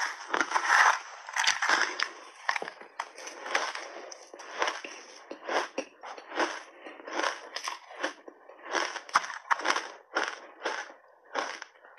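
Mouthfuls of frozen pink shaved ice coated in milk powder being chewed: a steady run of crisp crunches, about two a second.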